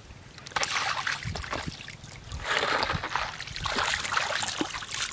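Splashing in shallow muddy floodwater, in about three bursts with small sharp slaps in between.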